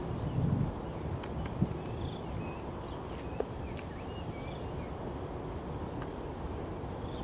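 Countryside ambience: a steady high insect drone with faint short bird chirps scattered through it, over a low rumble, and a couple of small clicks.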